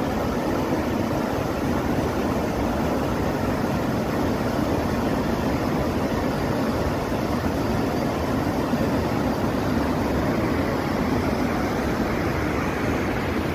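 Steady rush of the River Avon pouring over the horseshoe-shaped Pulteney Weir, a constant loud roar of falling water.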